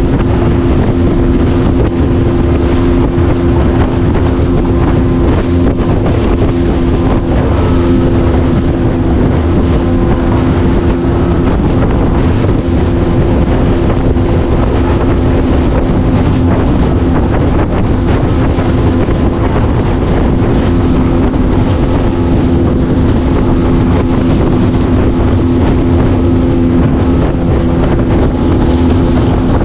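A small fishing boat's motor running at a steady speed under way, with wind buffeting the microphone.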